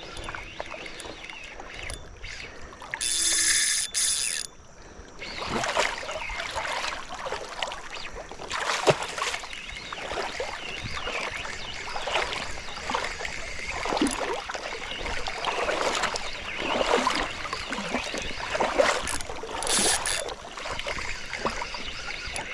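Water splashing and sloshing in irregular bursts around a paddle board while a big fish is fought on the line, with a short loud hiss about three seconds in.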